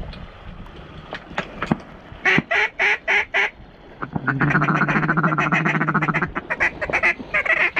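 Duck quacking: a run of five quick, loud quacks about two seconds in, then a long fast buzzy chatter and a few more quick quacks near the end.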